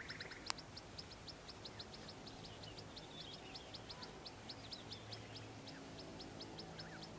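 Quiet outdoor ambience: a short high chirp repeated evenly, about five times a second, with a few other faint calls and a steady low hum underneath. A single sharp click about half a second in.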